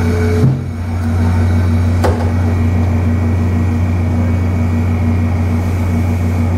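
VIA Rail stainless-steel passenger train rolling slowly to a stop along the platform, with a steady low hum throughout. A high squeal from the train cuts off about half a second in, and a single sharp clunk sounds about two seconds in.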